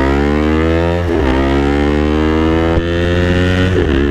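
Two-cylinder motorcycle with a Villain aftermarket exhaust accelerating, its engine note climbing steadily and dropping sharply at upshifts about a second in and again near the end. The note is smooth rather than raspy.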